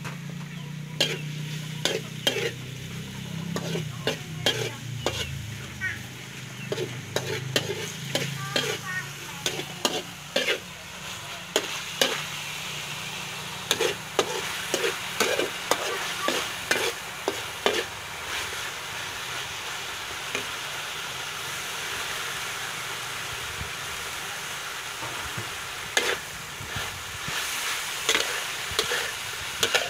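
Metal spatula scraping and clanking against a steel wok in irregular runs of sharp strokes, over the steady hiss of pork slices sizzling in the hot pan.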